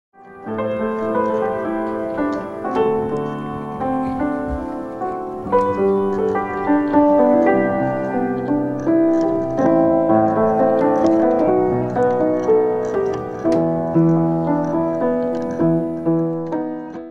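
Solo piano playing a continuous run of notes and chords, cutting off suddenly just before the end.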